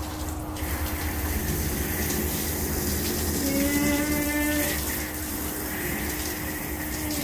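Garden hose spraying water in a steady rushing hiss, with a steady hum underneath. A brief voice sounds about three and a half seconds in.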